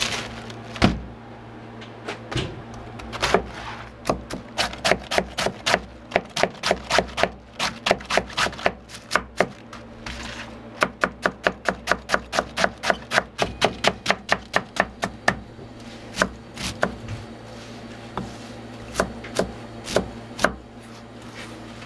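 A kitchen knife chopping cabbage on a cutting board, in quick even runs of about three to four strokes a second with short pauses, sparser near the end. A steady low hum runs underneath.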